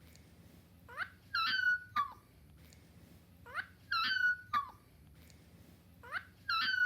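A dog's squeaky, whining yawn, repeated about every two and a half seconds: each one a short rising squeak, a held high-pitched whine, then a brief falling squeak. It comes three times, the last just at the end.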